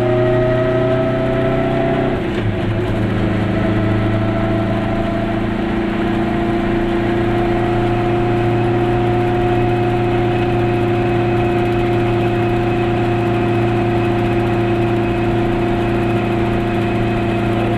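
Goggomobil's air-cooled two-stroke twin-cylinder engine running under way, heard from inside the small car's cabin. The engine note breaks briefly about two seconds in, like a gear change, then runs steadily at a slightly higher pitch that creeps up slowly.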